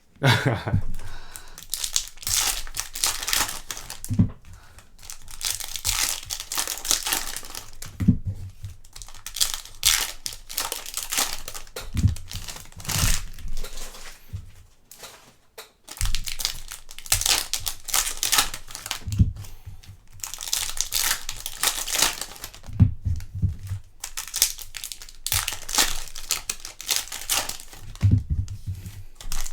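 Foil trading-card pack wrappers being torn open and crinkled, one pack after another, with a dull knock every few seconds.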